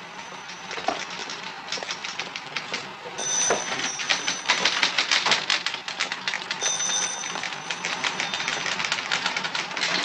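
Typewriter typing rapidly from about three seconds in, a dense run of sharp key clacks. Brief high rings sound twice.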